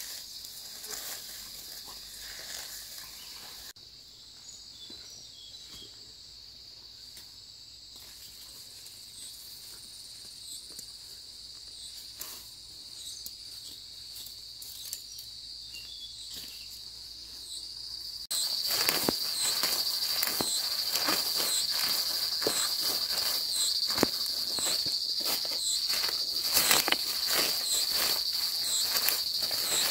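Insects trilling steadily in a high, unbroken tone. Throughout, and much louder and closer from about eighteen seconds in, comes the rustle and crackle of weeds being pulled up by hand among dry stalks and leaves.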